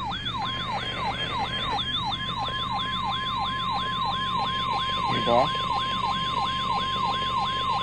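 Emergency alert attention signal: a siren-like tone sweeping down in pitch about three times a second, joined about half a second in by a steady high tone, the Weather Radio warning alarm tone, announcing a tornado warning.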